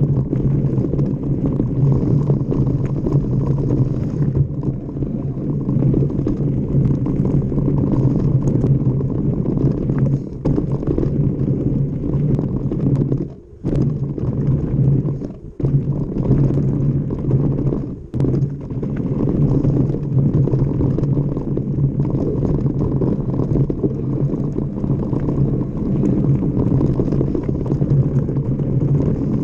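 Mountain bike riding fast down a dirt trail: a steady rumble of tyres on the ground and wind on the mic, dropping away briefly three times in the middle.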